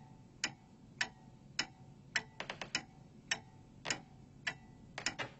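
Clock-like ticking, about two ticks a second, each tick with a short ring, with a few quicker extra ticks in between.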